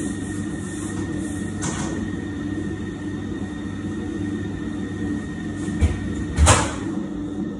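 Large electric stand mixer running steadily while it mixes shortbread dough, with two knocks about six seconds in, the second louder.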